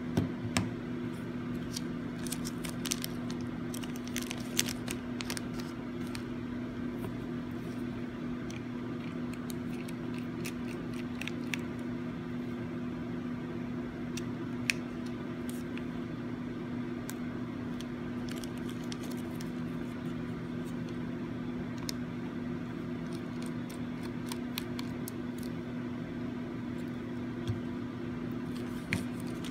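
A steady low hum runs under small scattered clicks and light scrapes of a small Phillips screwdriver backing out the plastic dash camera case's screws and handling the tiny screws. The clicks are busiest in the first several seconds, then come only now and then.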